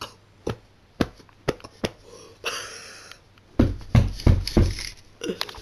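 Handling noise on a handheld recording device: a run of sharp clicks and taps about half a second apart, a breathy rush of air, then a burst of heavy bumps on the microphone as the device is moved, and a few more clicks near the end.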